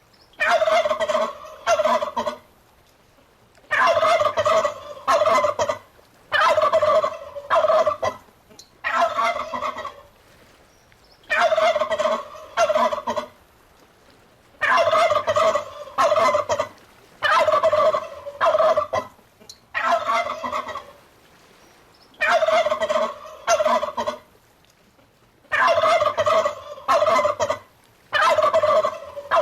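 Turkey gobbling over and over: loud, rattling calls about a second long, often two close together, repeated every two to three seconds with short quiet gaps between.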